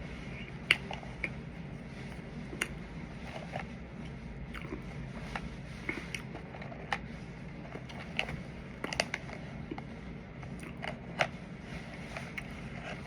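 A person eating: irregular sharp mouth clicks and smacks while chewing, over a steady low background hum.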